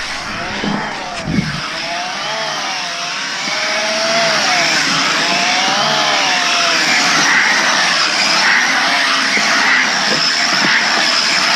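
A 5-inch FPV quadcopter in flight, its brushless motors and propellers whining and gliding up and down in pitch as the throttle changes, over a steady rush of wind. A short knock comes about a second in.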